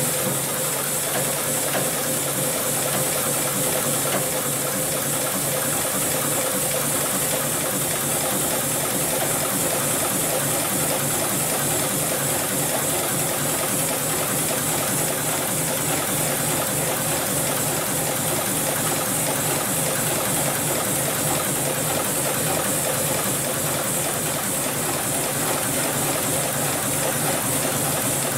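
Hightex 7273 PLK programmable computerized bartacking sewing machine stitching a pattern through thick folded rope, its needle mechanism running steadily at an even rapid pace.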